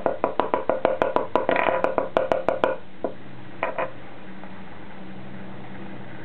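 Rapid tapping of a chess piece on a wooden tabletop, about seven taps a second for nearly three seconds, then a few single taps.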